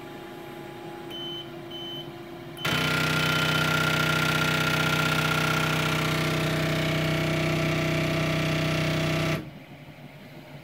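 QIDI Tech X-One 2 3D printer's stepper motor drive running with a loud, steady buzz for about seven seconds, starting and stopping abruptly, the sign of a fault the owner puts down to a bad X-axis limit switch harness. Faint short high beeps come just before it.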